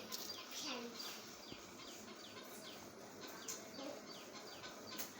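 Small birds chirping, a steady run of short, quick down-slurred chirps repeated over and over, with faint voices underneath.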